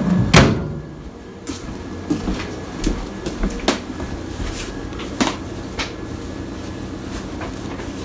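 A sharp knock about half a second in, then scattered soft clicks and rustles as a quilted fabric microwave potato bag is handled and set down on a countertop, over a low steady hum.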